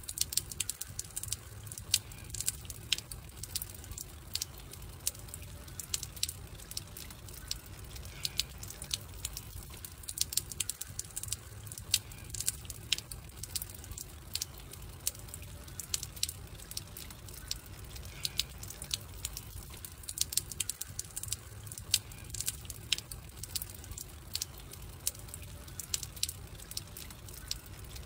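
Wood campfire crackling, with frequent irregular sharp pops and snaps over a steady low rumble.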